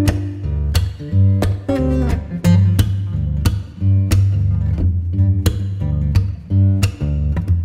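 Background music: plucked acoustic guitar over a steady bass line.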